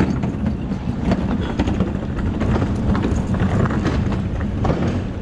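Heavy subwoofer cabinets on casters being rolled over hard ground: a continuous low rumble with irregular clacks and rattles from the wheels.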